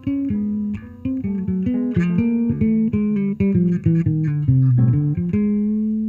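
Instrumental duet of a hollow-body archtop electric guitar and a headless electric bass: a quick run of plucked single notes, about five or six a second, settling on a held note near the end.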